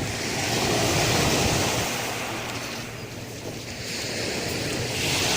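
Sea waves washing on the shore: a rushing surge that swells, fades a little after the middle, and swells again near the end.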